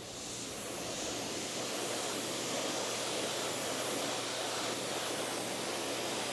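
Water spraying in a steady hiss, as from a pressure washer or hose rinsing a wheel and tyre. It fades in over the first second, then holds steady.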